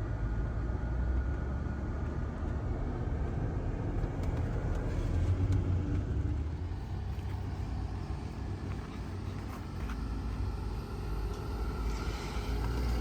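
A vehicle driving over dirt trails: a steady low engine and road rumble.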